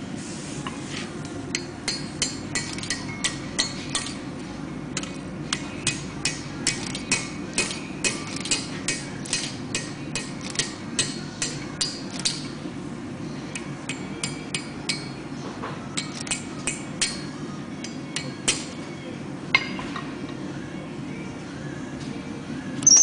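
Blacksmith's hammer striking red-hot steel held in tongs on an anvil, ringing blows at about two a second for roughly twelve seconds, then slower, scattered blows. A sharper, louder clang near the end.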